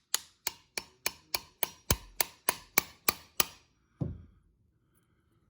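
A hammer driving nails into carpet tack strip: about a dozen quick, evenly spaced strikes, roughly three a second, then one duller thud about four seconds in.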